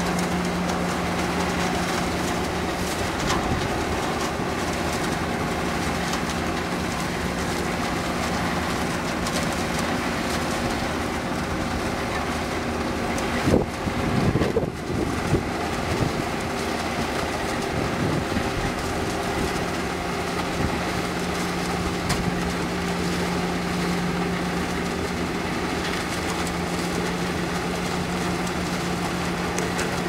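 Engines of a self-propelled grape harvester and a nearby tractor running steadily with a constant hum. About halfway through there is a brief louder stretch where the pitch wavers.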